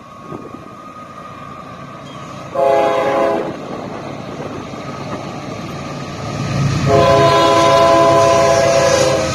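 Diesel freight locomotive's multi-tone air horn sounding a short blast about two and a half seconds in, then a long blast from about seven seconds, over the rising rumble of the approaching train.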